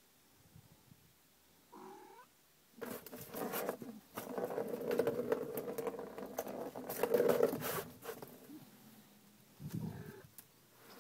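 A plastic ball rolling and rattling around the plastic track of a cat's circle-track scratcher toy as the cat bats it: a short knock about two seconds in, then about five seconds of continuous rolling rumble with many clicks, and another short burst near the end.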